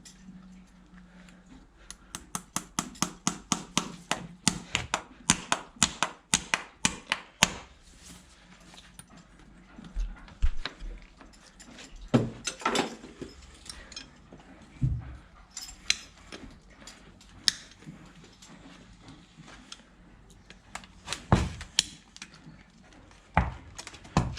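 Hoof-care tools working on a horse's hoof: a quick run of sharp taps, about three or four a second, lasting some five seconds, then scattered single knocks.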